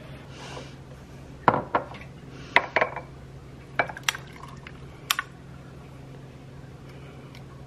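Ice cubes clinking in a ceramic cup and a glass shot glass knocking against it as espresso is poured over the ice: a string of sharp clinks over a few seconds, above a low steady hum.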